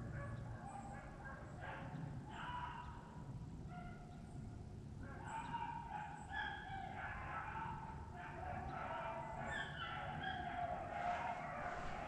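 A pack of beagles baying while running a rabbit, several hound voices overlapping, the cry growing fuller and a little louder from about five seconds in.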